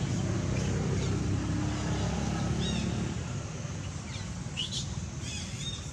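A motor vehicle's low rumble, fading after about three seconds, with short high chirps several times in the second half.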